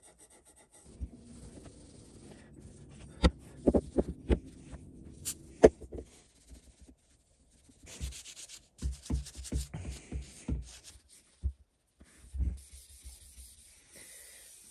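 Wire wool scrubbing the steel part of a height gauge to clean off dirt, in stretches of rubbing broken by several sharp knocks and a pause in the middle.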